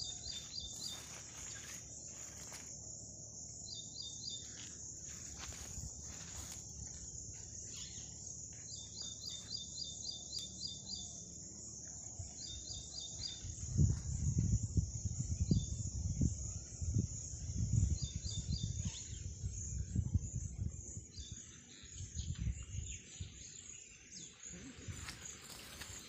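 A steady high insect drone runs throughout. Short, rapid trilled calls come in bursts every few seconds. About halfway through, a run of low rumbles sets in that is louder than either.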